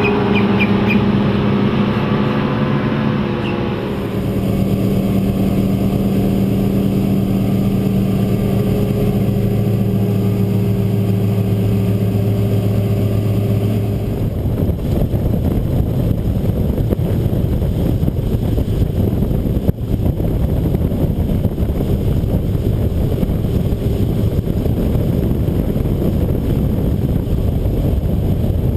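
Twin Evinrude 225 HP Ram Injection two-stroke outboards running with the boat underway, their steady engine note strongest in the first half. About halfway through, the engine tone gives way to a steady rush of wind and water noise.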